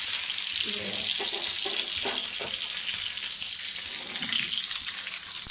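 Brinjal (eggplant) pieces sizzling as they fry in hot oil in a pan, a steady hiss.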